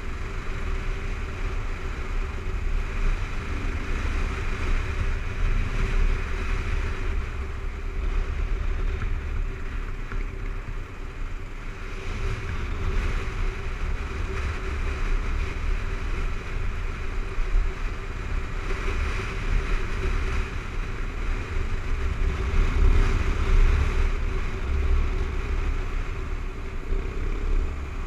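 Kawasaki KLR 650's single-cylinder engine running steadily at cruising speed, with heavy wind buffeting on the helmet-mounted microphone.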